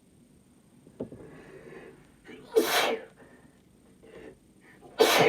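A woman sneezing twice, about two and a half seconds apart, with a drawn-out breathy in-breath building up to the first. The sneezes are induced by Chhinkni sneezing powder.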